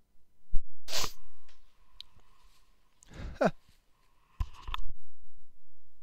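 A person sneezing three times in a few seconds, set off by dust inside the laptop.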